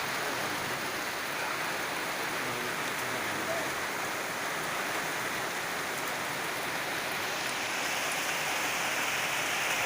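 Rain pouring steadily onto a stand of porang (konjac) plants: an even, unbroken hiss.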